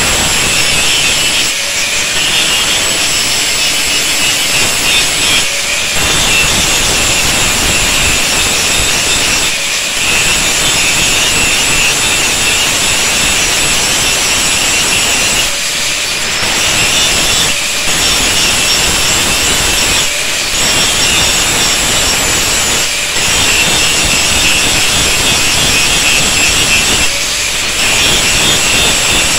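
Handheld angle grinder with an abrasive disc grinding into old saw-blade steel to shape a knife blank: a steady high motor whine over harsh grinding. The grinding eases briefly every few seconds.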